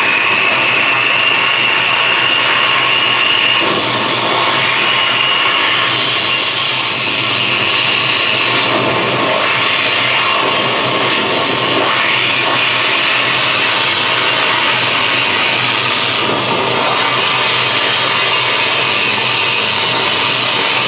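Harsh noise music from a synthesizer and effects units: a dense, loud, unbroken wall of noise, with a high whine running through the first few seconds.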